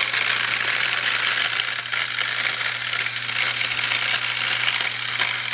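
Battery-powered Thomas the Tank Engine toy train running steadily, a small electric motor whirring while plastic gears and wheels rattle on the plastic track.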